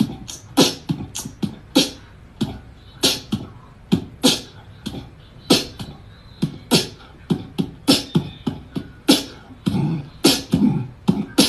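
A cat spitting and hissing in short, sharp bursts, about two a second at uneven spacing: the defensive warning of a startled cat.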